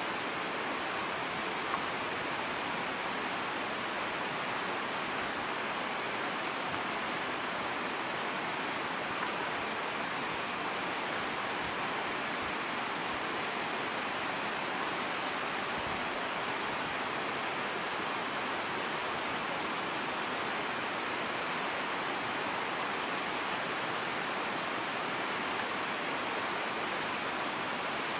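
A steady, even rushing hiss with no distinct knocks or clashes.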